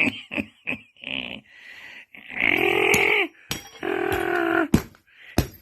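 A person's voice making two drawn-out animal-like grunting sounds for a puppet, with a few light clicks of plastic toys around them.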